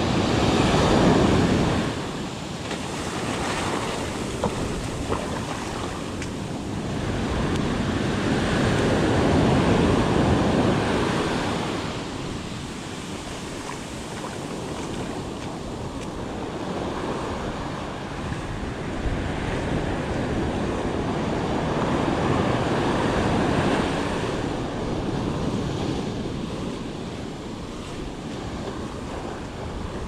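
Ocean surf washing up a sandy beach and breaking against rocks, in slow swells that are loudest about a second in, around ten seconds and again around twenty-three seconds.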